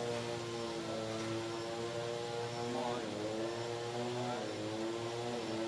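An engine droning steadily at an even pitch, which dips and recovers briefly about three seconds in and again a second or so later.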